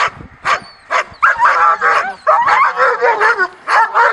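Young German Shepherd barking, a few single sharp barks at first, then from about a second in a rapid run of barks, roughly three a second. This is the aroused barking of a dog worked up by the helper in protection training.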